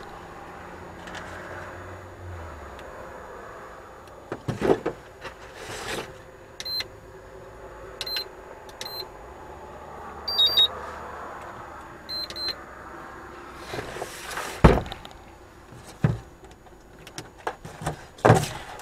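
Knocks and clatter of gear being handled, with several short high electronic beeps, singly and in pairs, between about seven and twelve seconds in.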